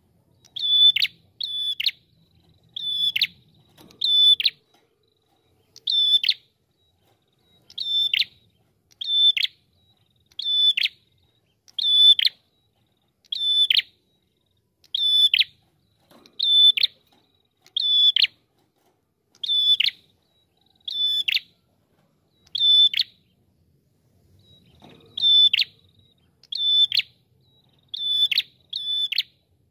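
Ashy tailorbird calling: a loud, clear, high note that ends in a quick downward flick, repeated about every second, some twenty times, with a few longer pauses.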